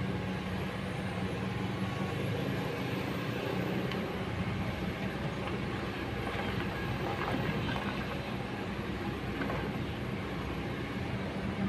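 Kobelco SK200 excavator's diesel engine running steadily under working load as the machine swings and moves its boom, an even low drone throughout.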